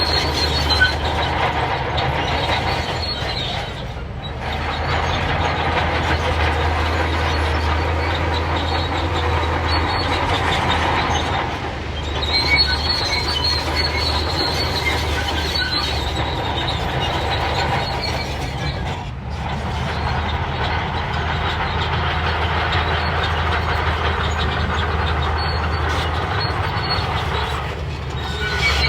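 Shantui crawler bulldozer working: a diesel engine runs under load, with a steady metallic squeal and clatter from the steel tracks. The noise eases off briefly about every eight seconds, then picks up again.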